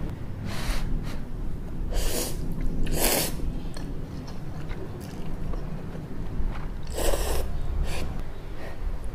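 Close-up eating sounds of instant ramyun noodles: several short, loud slurps as the noodles are drawn into the mouth, with chewing between them.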